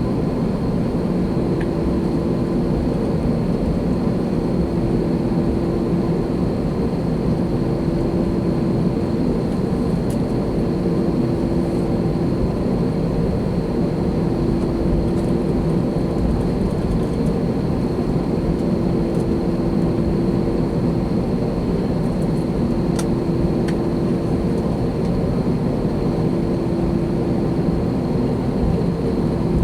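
Cabin noise inside an Airbus A321 on the ground before takeoff: a steady engine and air-system hum at idle thrust, with a couple of faint ticks a little past the middle.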